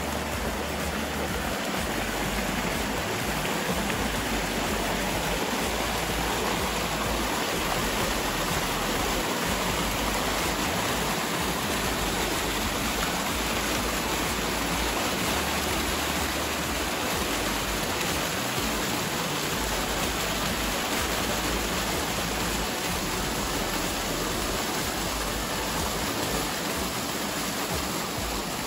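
Creek water pouring through a narrow sandstone chute into a pool, a small cascade making a steady rushing sound.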